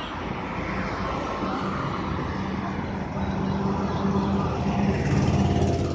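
Heavy-duty forklift's diesel engine running steadily, growing louder over the last couple of seconds.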